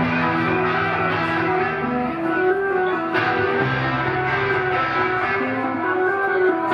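Live rock band music: electric guitar playing over a bass line that steps between held low notes.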